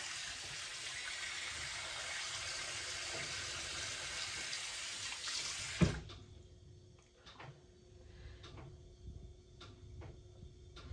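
Water running steadily from a tap into a sink. About six seconds in it cuts off suddenly with a knock, leaving faint clicks and a faint steady hum.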